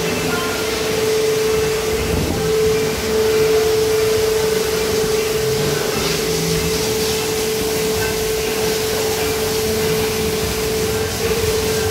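High-pressure car washer running, with a steady motor hum under the hiss of the water jet spraying against a car's body.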